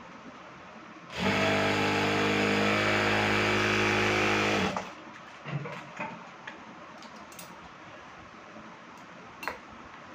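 Industrial sewing machine running at a steady speed for about three and a half seconds as it stitches a seam, then stopping sharply. A few light knocks follow as the cloth is handled.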